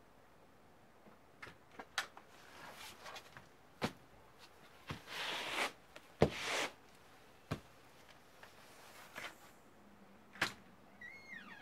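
A house door on a porch being opened and shut: a string of sharp clicks and knocks with short rushes of noise. Near the end a cat meows once, its pitch falling.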